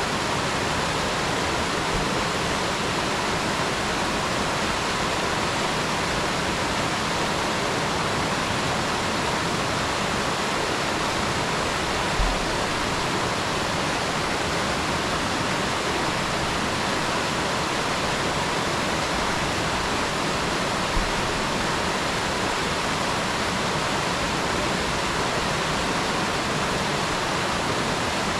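Mountain stream running in a steady, even rush of water. Twice, a brief low bump.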